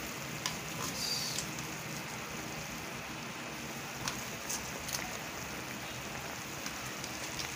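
Squid and sauce simmering in a wok: a steady sizzling hiss with a few small ticks and pops.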